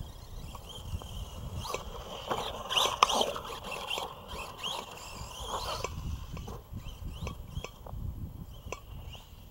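Arrma Big Rock RC monster truck's electric motor whining, rising and falling in pitch as the throttle is worked, with scattered clicks and one loud knock about three seconds in.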